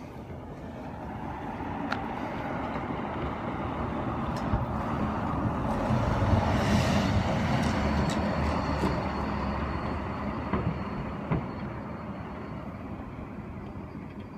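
A road vehicle passing by: a broad rushing noise with a low rumble that swells over several seconds, peaks about halfway through and fades away again. A few faint clicks sound along the way.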